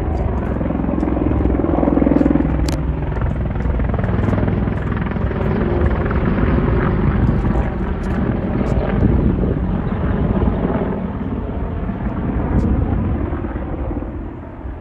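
Military helicopter flying low overhead, its rotor and engine noise steady, easing off a little near the end.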